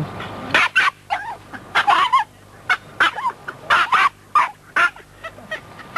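Terriers barking and yapping excitedly: about a dozen short, high-pitched yaps in quick succession, starting about half a second in and stopping near five seconds.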